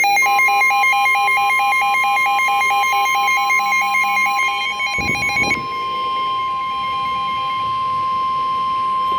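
NOAA Weather Radio 1050 Hz warning alarm tone: one loud, steady, high-pitched tone announcing a warning. For about the first five seconds a fast electronic beeping pulses over it, then stops after a short low thump.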